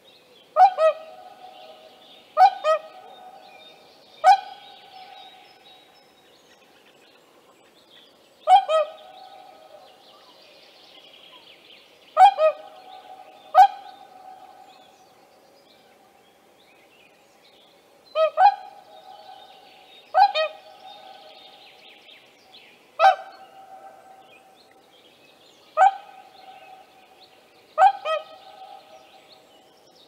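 Whooper swans calling: loud, ringing notes, many given as quick double calls, repeated every second or few seconds with short pauses. A fainter high-pitched calling runs underneath.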